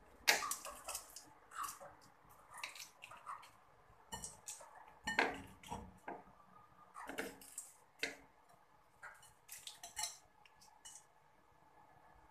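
Kitchen knife clicking and scraping against a ceramic plate as raw prawns are cut and cleaned: a run of irregular short clicks and scrapes that dies away near the end.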